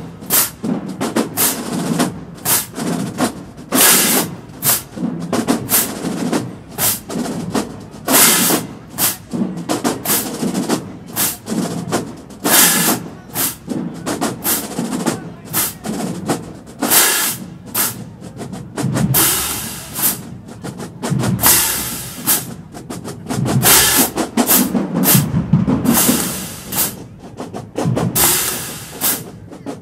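Marching band drumline playing a cadence: snare drums and bass drums struck in a fast, driving rhythm with rolls.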